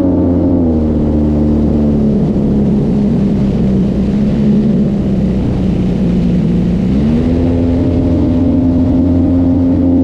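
Hangar 9 Timber 110 RC airplane's motor and propeller in flight, heard from the camera on board: the pitch drops as the throttle comes back about a second in, holds lower, then rises again about seven seconds in.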